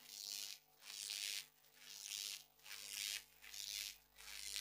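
Very faint hiss rising and falling in short swells about once a second, over a low steady hum.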